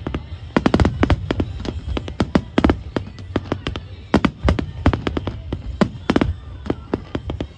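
Fireworks bursting in quick, irregular succession, many sharp bangs and cracks a second, some overlapping in dense bunches.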